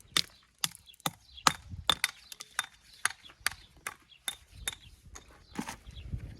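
Hammer striking stone in a quick, irregular run of sharp knocks and chips, about three a second, as a stone is dressed to shape.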